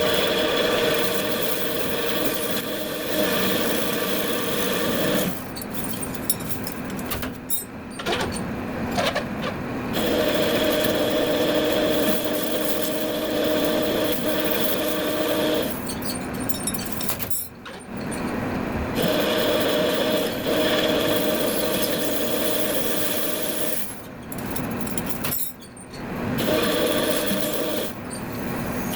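Metal lathe running and cutting, a steady whine in stretches of several seconds broken by three quieter gaps.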